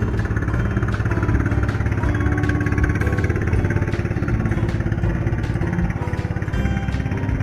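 Small boat engine running steadily with a low, even drone.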